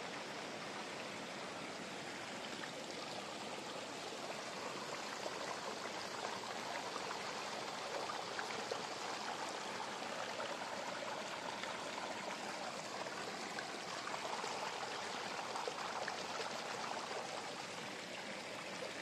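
Steady hiss of background noise, even and unchanging throughout.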